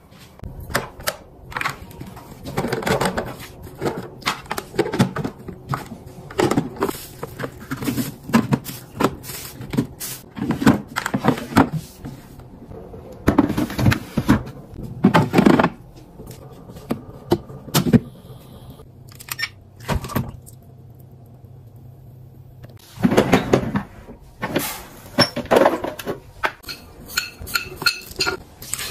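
A string of knocks, clicks and rustles from household things being handled, such as plastic storage boxes pushed onto a fridge shelf and food tipped into a blender jug, with a quieter stretch about two-thirds of the way through.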